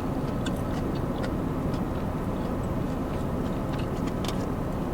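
Close-miked chewing, with scattered soft clicks and mouth smacks over a steady low rumble of background noise.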